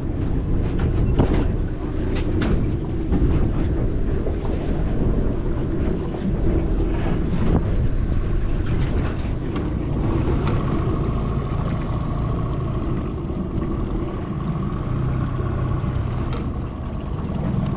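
Boat motor running steadily, with wind and water noise and scattered knocks in the first half. A steady high whine joins about ten seconds in.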